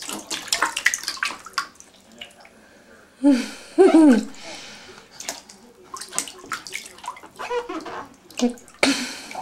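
Water splashing and slapping in a bathtub in a series of short irregular splashes. A brief wordless voice with a rising and falling pitch comes about three seconds in.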